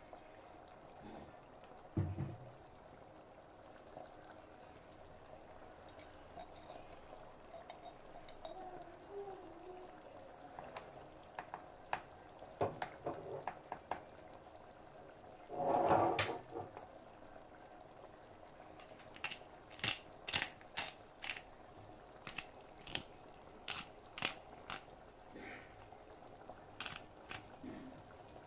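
Oxtail stew in tomato sauce simmering in a frying pan, the sauce bubbling, with a silicone spatula stirring through it. One louder stir about sixteen seconds in, and a run of sharp pops, one or two a second, in the last ten seconds.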